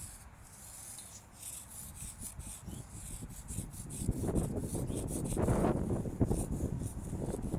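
Chalk scraping over a surface in short repeated strokes, over the low rumble of wind buffeting the microphone.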